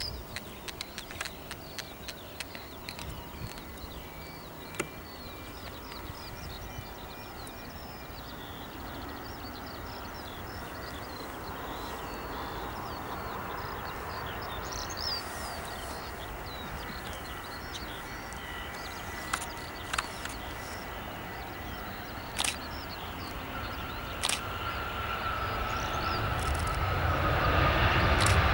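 Airbus A320-211 jet engines on final approach, a jet rumble that grows steadily louder as the airliner comes in and reaches the runway; near the end a whine falls in pitch as it passes. Birds chirp over it in the first part.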